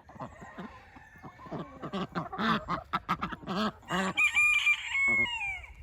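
Chickens calling: a quick run of short clucks and squawks, then a rooster crowing, one long, high crow that falls away at the end.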